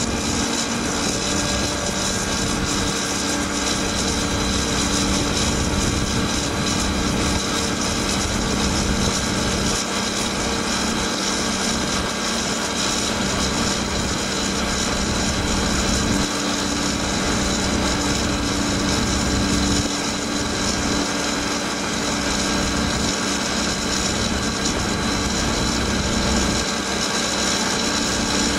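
Walinga bulk feed trailer's high-output auger unloading system running, a steady mechanical hum over a constant hiss.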